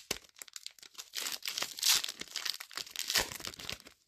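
Foil wrapper of a Pokémon trading-card booster pack being torn open and crinkled by hand: a rapid run of crackles, loudest a little before two seconds in and again a little after three.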